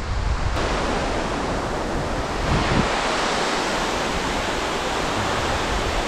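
Steady rushing of a cascading creek waterfall, with wind buffeting the microphone in the first half.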